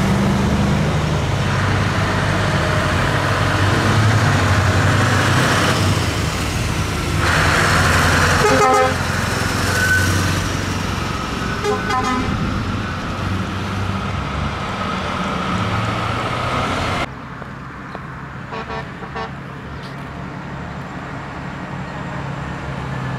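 Heavy diesel trucks driving past one after another, their engine rumble loud in the first half and fading off, with horns sounded in short blasts a few times. The sound drops suddenly about two-thirds of the way in.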